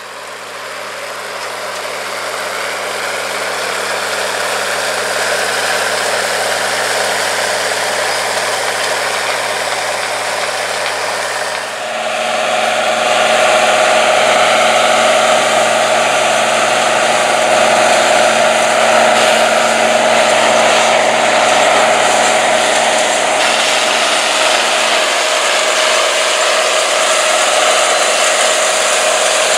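International 1566 tractor's turbocharged six-cylinder diesel running steadily under load while pulling a 16-row corn planter. About twelve seconds in, the sound cuts to an International 6788 2+2 tractor's diesel working with a no-till planter, with a steady whine over the engine.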